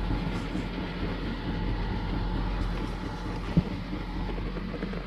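Steady low rumble of a running vehicle, with a single sharp knock about three and a half seconds in.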